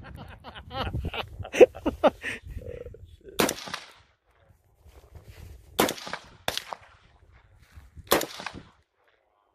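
AR-15 rifle fired in single shots, about five sharp reports at uneven intervals, each with a short echo trailing after it.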